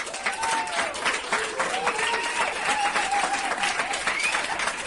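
A crowd applauding and cheering: a dense patter of clapping with voices rising and falling over it.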